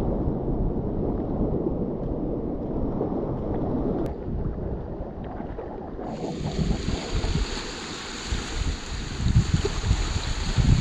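Sea water and wind on the microphone: a muffled low rumble of sloshing water that about six seconds in suddenly turns into a brighter hiss of wind and surf.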